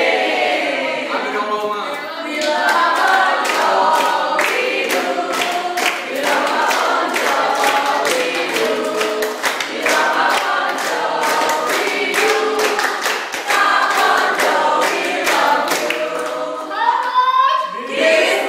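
A group of men and women singing a birthday song together, clapping in time at about two claps a second, breaking into cheers near the end.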